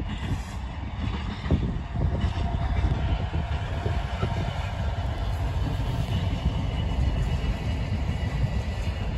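Freight train passing: the locomotive goes by and its container wagons follow with a steady rumble over the rails, with a faint steady whine above the rumble.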